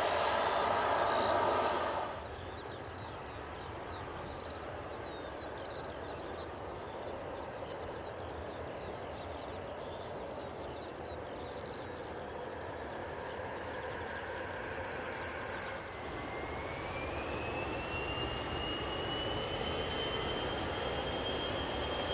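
Boeing 737-500 jet engines (CFM56) running, heard from outside. A louder rush drops away about two seconds in. About sixteen seconds in, a whine rises in pitch and then holds as the engines spool up toward take-off thrust.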